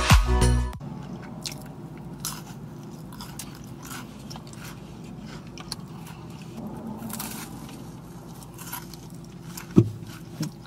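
Music with a steady beat cuts off abruptly under a second in, then a person chews and crunches a small crunchy snack close to the microphone, with scattered faint crunches and one sharp low thump near the end.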